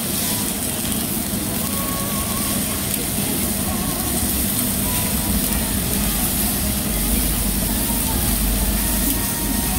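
Beef sizzling steadily on a hot stone grill plate, with a low rumble rising in the last few seconds.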